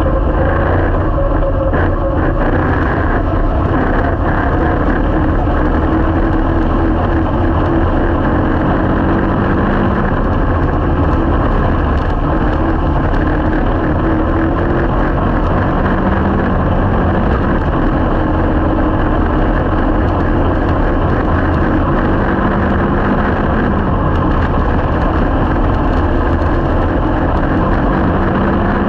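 A junior slingshot race car's engine running steadily, heard from inside its open cockpit, its pitch rising and dipping gently as the car rolls at low speed on the dirt track.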